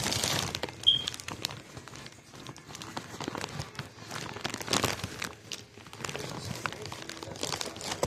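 Bag of SkinnyPop popcorn being handled, crinkling and rustling with many small crackles.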